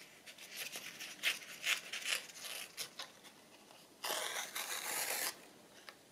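Craft paper being handled: several short scratchy rustles, then a steadier rasp lasting about a second, starting about four seconds in.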